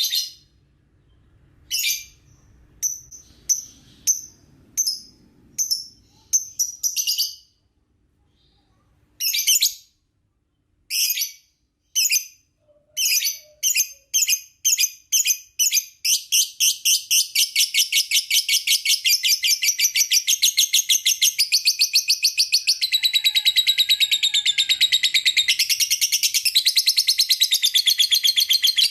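Lovebird calling: separate sharp chirps at first, coming faster and faster, then from about halfway a long unbroken run of rapid high chirping.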